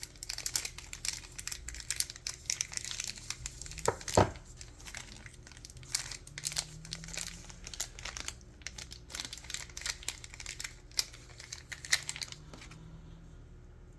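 Crinkly packaging being unwrapped and torn open by hand: a dense run of crackles and rustles, with a couple of louder crackles about four seconds in, dying away shortly before the end.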